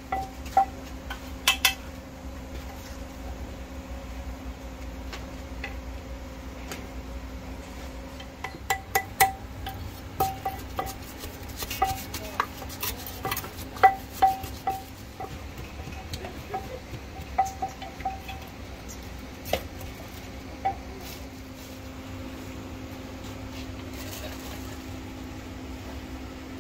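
Metal cooking utensils clinking and scraping against metal cookware in irregular bursts, busiest in the middle, many strikes leaving a short ringing clang, over a steady low hum.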